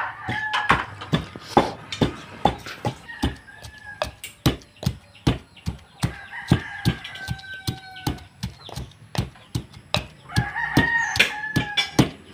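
A rooster crowing four times, the first already under way at the start and the longest in the middle, over a steady knocking of about two to three knocks a second.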